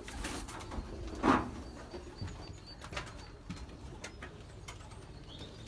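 Racing pigeons in a loft: soft cooing with scattered scuffs, clicks and wing flaps, and one louder brief flutter or rustle about a second in.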